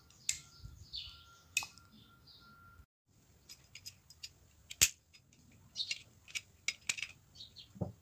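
Kitchen knife prying at the seam of a plastic car phone charger's housing: scattered clicks and scrapes of blade on plastic, with one sharp snap about halfway through and a run of clicks near the end. Small birds chirp in the background during the first few seconds.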